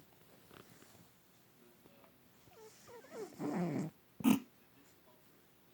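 Domestic cat snoring in its sleep: one long, rough snore about three seconds in, then a short, sharp snort, the loudest sound here.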